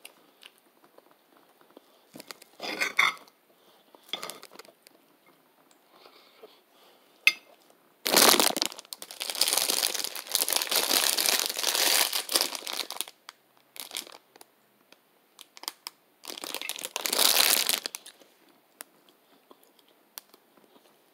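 Food wrapper crinkling close to the microphone: a few short rustles, then a long stretch of crinkling lasting about five seconds, and another shorter one near the end.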